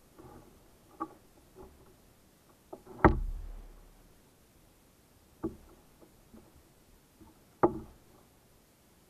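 Hollow knocks of gear against a plastic fishing kayak's hull, heard through the hull-mounted camera: four separate knocks, the loudest about three seconds in with a low thud trailing after it.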